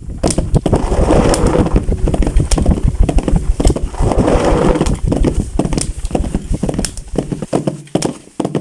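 Close-miked homemade Foley sound effect: dense, continuous clattering and crackling over a low rumble, starting abruptly and thinning out near the end.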